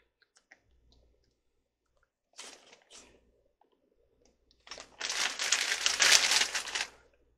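Crinkling, crackling handling noise: a few light clicks, a short burst about two seconds in, then a louder crinkling burst of about two seconds near the end.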